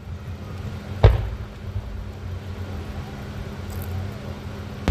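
One loud boom of an aerial firework shell bursting about a second in, over a steady low rumble.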